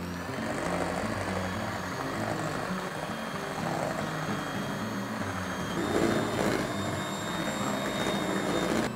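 Electric hand mixer running steadily, its twin beaters whisking warmed egg whites and sugar in a stainless steel bowl to make marshmallow frosting. Its pitch shifts slightly about six seconds in.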